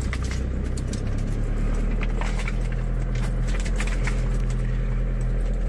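Car engine running and road noise heard from inside the cabin as the car drives off: a steady low hum whose note changes about a second in, with faint scattered clicks.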